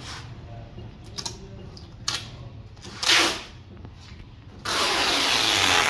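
Adhesive tape being pulled off the roll: a few short rasping rips, then one long, loud pull lasting a little over a second near the end.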